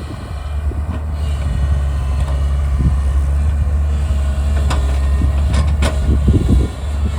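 A JCB earthmover's diesel engine running steadily under load, with a few sharp metallic clanks about two-thirds of the way through.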